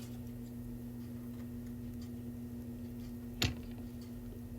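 One sharp click as the freshly picked padlock or tools are handled, about three and a half seconds in, over a steady low hum.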